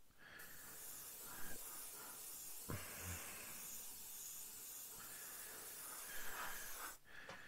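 Gaahleri Mobius airbrush spraying thinned paint: a steady hiss of air that cuts off abruptly near the end as the trigger is released.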